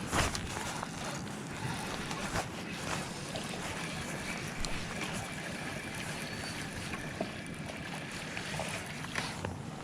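Steady rushing noise of river water below a dam, with a few light clicks.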